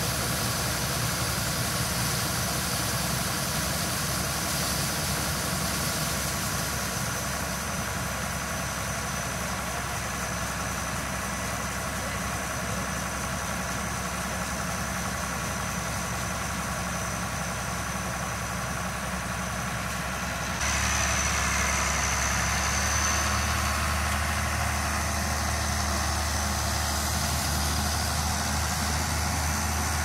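The engines of a John Deere 6620 combine and an International 666 tractor run steadily while the combine augers corn into a gravity wagon. About two-thirds of the way through, the sound turns abruptly louder and deeper.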